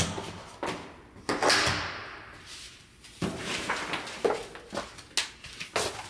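Knocks and clicks at an entryway door and slippers on a tile floor as a cardboard box and plastic-wrapped groceries are picked up and carried in, with a stretch of packaging rustle about a second in.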